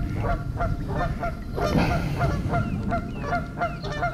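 Geese honking in a rapid series of short calls, about three or four a second, without a break.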